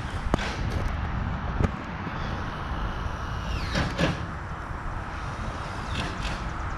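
A few sharp knocks and clacks as a crew fits a garage door, with a brief falling squeak a little under four seconds in, over a steady low background noise.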